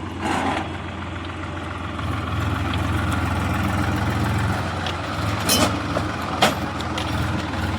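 Heavy diesel engine running steadily at low revs, getting a little louder about two seconds in. Two sharp knocks near the end stand out above it.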